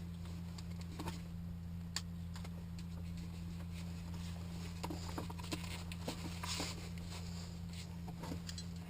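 Scattered light clicks and rustles of a helmet and headset being handled in a small cockpit, over a steady low electrical hum.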